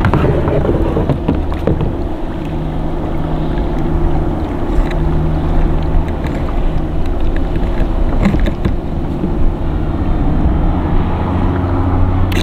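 Kayak's electric trolling motor running with a steady low hum, under wind and water noise.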